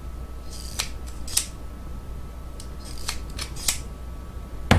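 Pliers snipping and clicking on insulated wire, about half a dozen short sharp snips spread over a few seconds, with a louder knock near the end.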